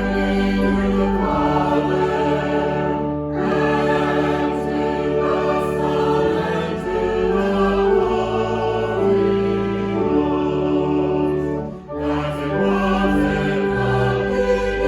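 Sacred choral music: a choir singing in held chords that change slowly, with a brief break about twelve seconds in.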